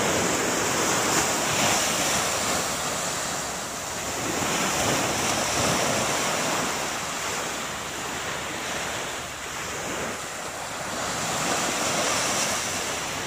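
Small surf waves breaking and washing up a sandy shore, the wash rising and falling in slow swells.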